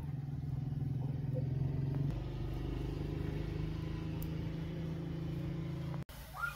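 A motor engine running steadily with a low hum; its note shifts about two seconds in, and the sound cuts off abruptly near the end.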